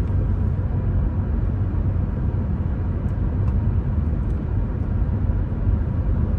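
Steady road noise of a moving car heard from inside the cabin: a continuous low rumble of tyres and engine.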